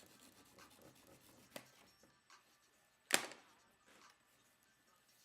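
Steak knife scraping and slicing through packing tape and cardboard on a box, with a small click and then a sharp knock about three seconds in.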